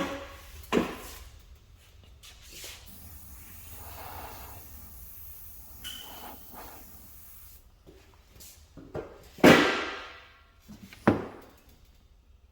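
A handful of sharp knocks and clunks, the loudest about nine and a half seconds in and another about a second and a half later, over a steady low hum.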